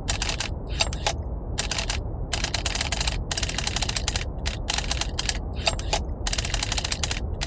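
Rapid mechanical typewriter key clicks in dense runs with short pauses, over a steady brown-noise rumble.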